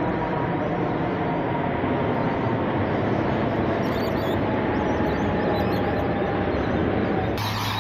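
Four-engined Airbus A380 airliner passing low overhead, its jet engines making a steady rushing roar with a faint whine that slides slowly down in pitch. The sound cuts off suddenly near the end.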